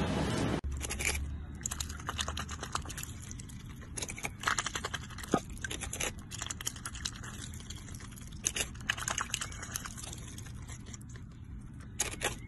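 A white domestic duck biting and tearing at lettuce leaves with its bill, making quick, irregular crisp crunches, some of them louder snaps.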